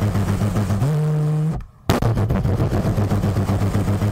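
A low, rapidly pulsing engine-like sound that rises in pitch about a second in and holds, breaks off suddenly, then starts over with the same pulsing, like one effect played twice.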